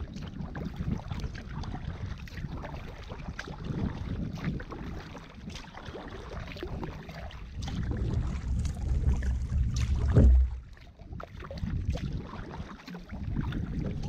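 Kayak paddle strokes dipping into calm water every second or two, under wind rumbling on the microphone; a stronger gust swells about ten seconds in and drops away suddenly.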